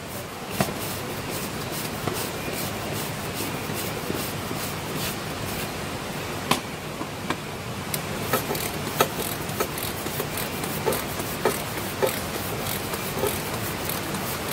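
Hands fitting a new oil filter and its cap into a truck engine's oil filter housing: scattered light clicks and knocks, more of them in the second half, over a steady background hiss.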